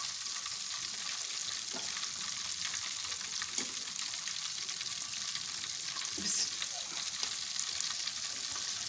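Coated chicken pieces deep-frying in hot oil, fried golden brown: a steady sizzle, with a few light clicks as they are moved in the pan.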